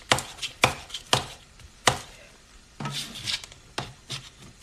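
Kitchen knife chopping zucchini on a plastic cutting board: sharp knocks about every half second, a break of softer scraping about three seconds in, then two more chops.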